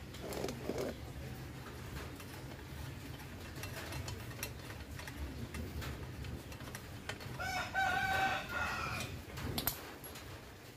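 A rooster crows once, a pitched call of about two seconds starting some seven seconds in. A few light metallic clicks come from hand tools on the scooter's rear brake caliper.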